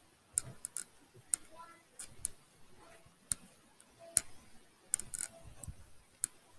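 Scattered sharp clicks and light taps at uneven intervals, about a dozen in all: handling noise from fingers and a hand moving on a phone held right up to the microphone.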